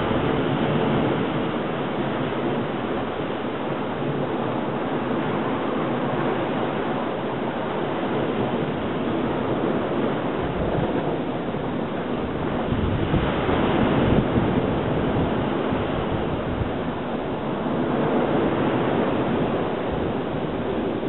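Surf washing on a rocky shore, with steady wind noise on the microphone.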